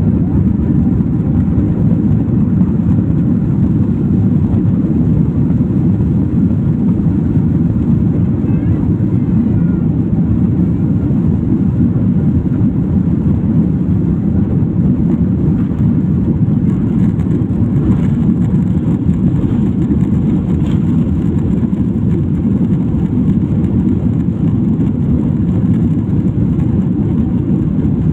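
Airliner engines at takeoff thrust, heard from inside the passenger cabin: a loud, steady, deep rumble.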